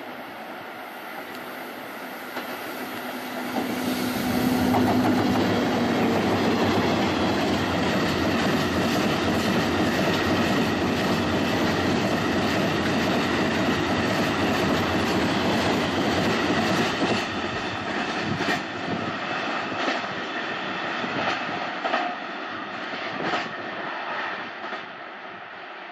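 Electric-hauled freight train of hopper wagons passing close by. A loud rolling rumble builds about four seconds in, then the wheels clack over the rail joints as the wagons go by, growing fainter as the train draws away near the end.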